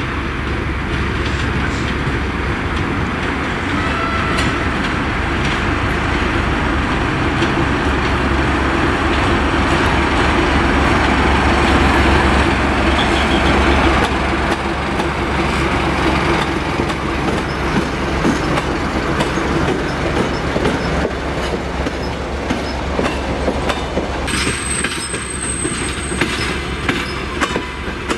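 TEM18V diesel shunting locomotive running past with a steady low engine rumble, loudest about halfway through. The passenger coaches it hauls then roll by, wheels clicking over the rail joints, with a brief high squeal near the end.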